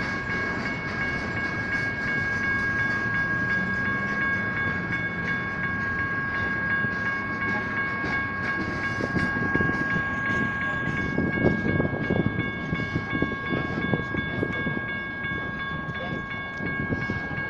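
General Signals Type 1 electronic railroad-crossing bells ringing steadily while freight cars roll past with a continuous rumble and wheel clatter. A further high bell tone joins partway through.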